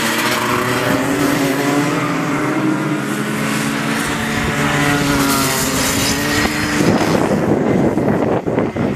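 Several racing kart engines running at speed, their pitch rising and falling as the karts accelerate and slow through the corners. About seven seconds in, the engine tones fade under a loud, rough rushing noise.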